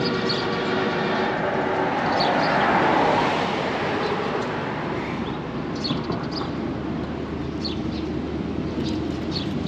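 A motor vehicle passing on the road: engine and tyre noise swells to its loudest about three seconds in, then fades into a steady traffic hum. Short high chirps sound now and then.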